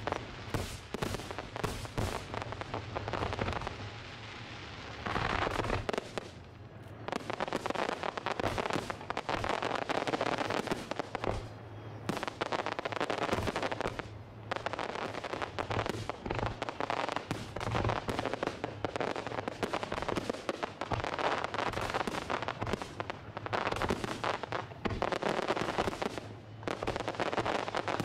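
Aerial fireworks display: shells bursting in quick succession, many sharp bangs over a continuous crackle, with a few short lulls.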